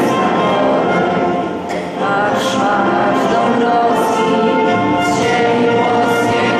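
A group of voices singing an anthem together, with long held notes and a brief drop in loudness about two seconds in.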